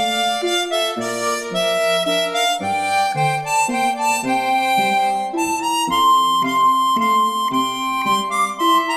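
Background music led by a harmonica-like reed melody over changing chords and low bass notes.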